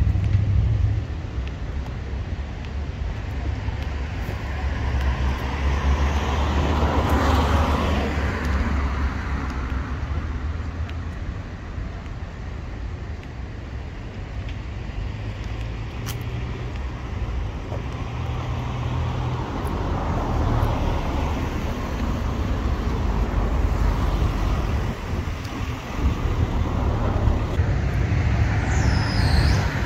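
Road traffic: several cars passing one after another, each swelling and fading, over a steady low rumble.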